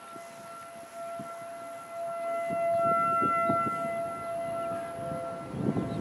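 Distant outdoor warning sirens sounding a steady wail at a fixed pitch during a test. The sound swells loudest about two to four seconds in as a rotating horn sweeps past.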